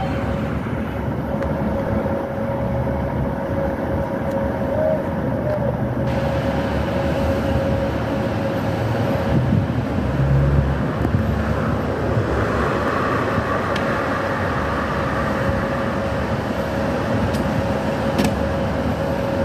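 Class 156 diesel multiple unit's engines idling at a standstill, a steady diesel rumble with a steady whine over it. About twelve seconds in, the engine note grows louder and brighter.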